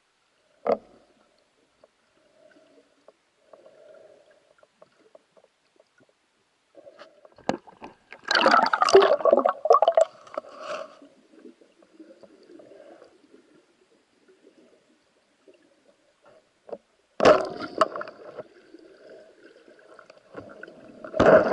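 Water gurgling and sloshing, picked up underwater by a camera in its housing. A single sharp click comes under a second in, then loud bursts of churning water: one lasting about two seconds in the middle, and two shorter ones near the end.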